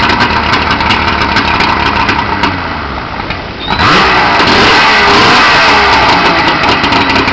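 An engine running loudly, revving up about four seconds in.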